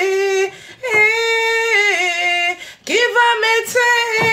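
A woman singing unaccompanied, holding long notes with pitch bends, in three phrases broken by short pauses about half a second and two and a half seconds in.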